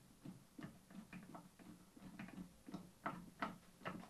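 Screwdriver turning a screw into the back of a vacuum cleaner's housing: a series of faint, irregular clicks, a little louder in the second half.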